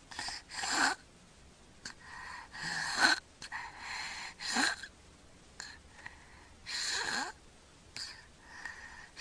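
A sleeping child snoring through his mouth: about five noisy breaths a second or two apart, the loudest about three seconds in.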